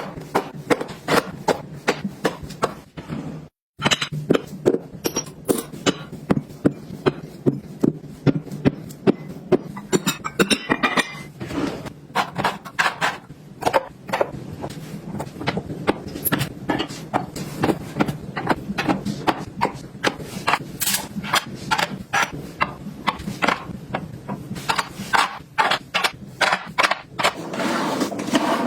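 Objects being handled and set down during organizing, giving a dense, irregular run of small clicks, taps and knocks, with a brief break about three and a half seconds in.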